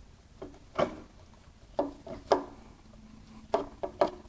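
About eight short, dull metal knocks and clunks in uneven clusters as a high-pressure fuel pump (Bosch CP3) on a 5.9L common-rail Cummins is rocked by hand against its mounting to work it free.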